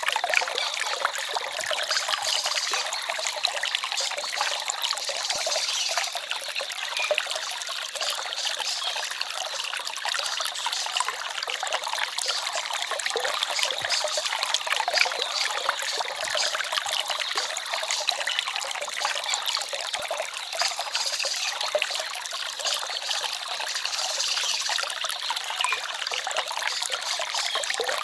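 Forest stream flowing and trickling steadily: an even rush of water with no breaks.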